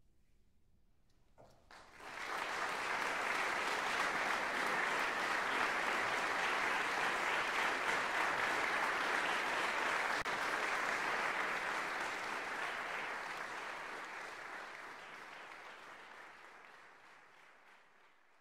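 Audience applauding: a few claps begin about a second and a half in and swell at once into full applause, which holds steady and then slowly fades away over the last several seconds.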